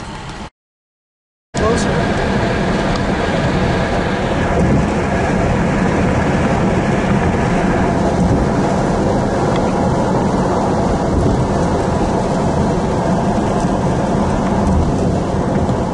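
Loud, steady rumbling wind and road noise from a moving car, with wind buffeting the microphone. It cuts in after about a second of silence near the start, following quieter traffic noise heard from inside the car.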